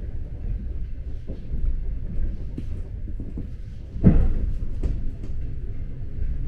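Train running with a steady low rumble and a few light knocks, and one loud clunk about four seconds in.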